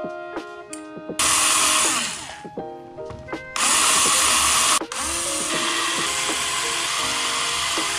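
Cordless electric screwdriver driving screws into a 3D-printed plastic case. It runs in two short bursts, then steadily from about halfway. Background guitar and piano music plays throughout.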